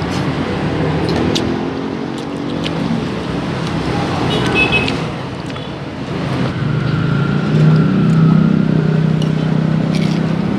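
Road traffic running past, with one vehicle engine growing louder and holding a steady low note from about six and a half seconds in. A few short, sharp clicks sound over it.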